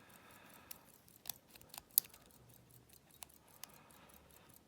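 Faint scraping and small metallic clicks of a lock pick working the pins inside an old all-brass Yale six-pin padlock under very light tension, gently tickling the pins; a handful of irregular ticks, the sharpest about two seconds in.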